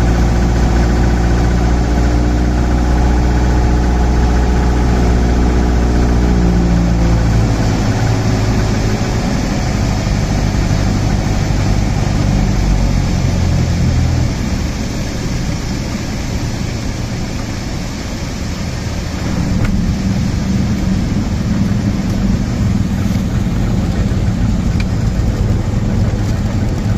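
Cessna 172's piston engine and propeller heard from inside the cabin during a landing: a steady engine drone whose pitch drops about seven seconds in as power comes back, growing quieter from about fourteen seconds in, then rising again with a fuller low tone about twenty seconds in as the plane rolls along the runway.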